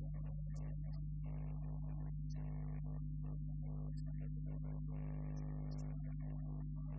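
Steady electrical mains hum, loud and unbroken, with a choppy stop-start mid-pitched sound over it that cuts in and out several times a second.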